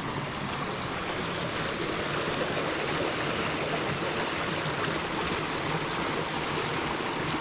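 Water running steadily through a pond's outlet dam and alewife fish ladder.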